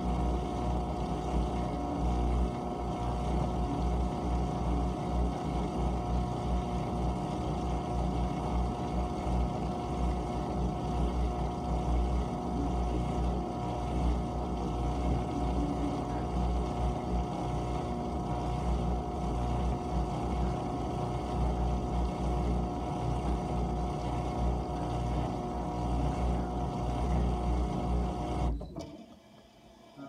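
GE dishwasher running mid-cycle: a steady motor hum with a constant whine over it, cutting off abruptly near the end.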